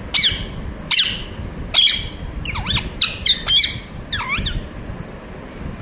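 Pet parrot giving a string of short, sharp squawks, about eight in all, with a quick cluster of them around the middle.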